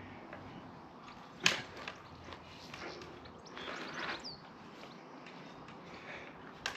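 ENGWE Engine Pro 2.0 e-bike's folding frame being swung shut by hand: a sharp clack about a second and a half in, a rustle a couple of seconds later, and a lighter click near the end.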